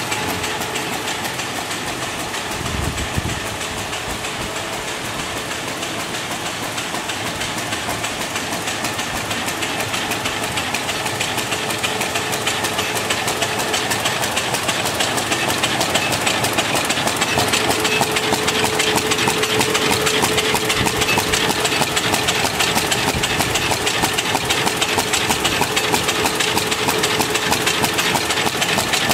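SUNHOPE 518TH paper-bag flat handle making unit running: a steady mechanical clatter with rapid, even ticking and a faint steady hum, growing a little louder as it goes.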